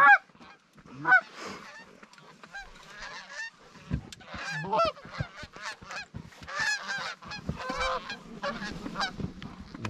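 Canada geese honking: many short, overlapping honks that grow busier from about four seconds in as a flock comes in overhead.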